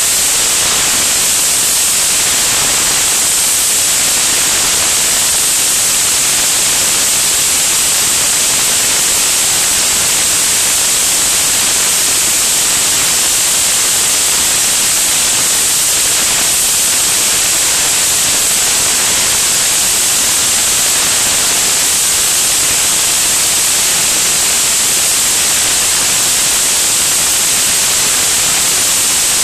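Loud, steady rush of airflow buffeting an action camera mounted outside a light aircraft in flight, an even hiss that is strongest in the treble.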